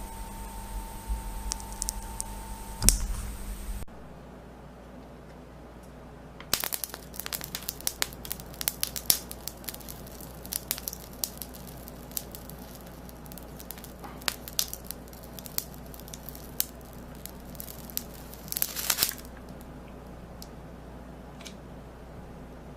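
Irregular crackling, crinkling and clicks of something being handled, with a denser burst of crinkling near the end. Before a cut about four seconds in, a steady hum with one sharp click.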